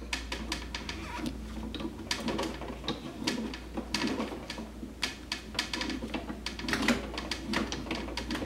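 A small Ridgid tubing cutter being turned around a copper pipe, its cutting wheel and rollers making rapid, irregular clicks as it scores through the tube.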